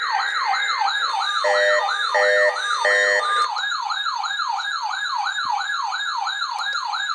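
Emergency-alert siren tone sweeping down in pitch over and over, about three times a second. Three short, harsh beeps sound over it between about one and a half and three seconds in.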